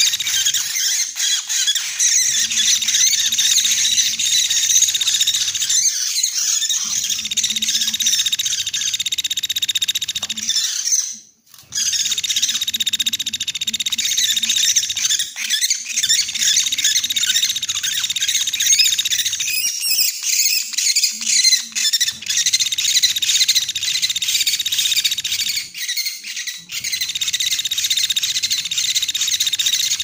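Small woodpeckers (pelatuk beras) giving a loud, continuous, high-pitched squeaking chatter, used as a lure call. The chatter breaks off briefly about eleven seconds in, then carries on.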